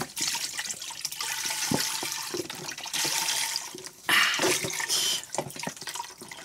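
Chicken broth pouring from a carton into the stainless steel inner pot of an Instant Pot: a steady splashing pour that grows louder for about a second just after four seconds in, then thins to drips and dribbles as the carton empties.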